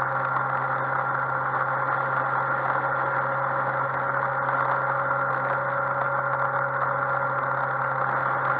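Yamaha XMAX 125 maxi-scooter's single-cylinder four-stroke engine running steadily under way, with wind and road noise, the pitch and level holding even throughout.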